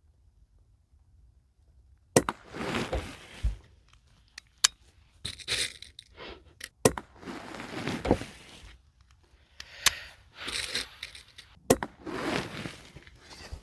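Daisy 777 single-stroke pneumatic .177 match pistol being fired and worked between shots: sharp cracks every few seconds, each followed by about a second of scraping, clattering noise from the pump lever and bolt.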